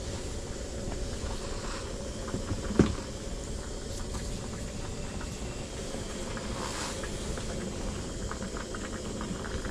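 Steady low rushing of a pot of stew simmering over a portable camping stove's flame, with a sharp knock about three seconds in and a few light clicks later on.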